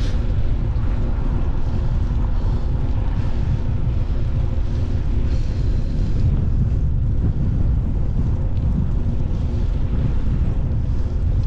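Wind buffeting the microphone of a camera moving along the road: a loud, steady low rumble with a faint steady hum under it.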